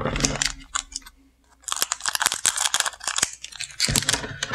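Scissors snipping open a foil trading-card booster pack, the wrapper crinkling in a dense run of crackles and snips from about two seconds in, with a knock near the end.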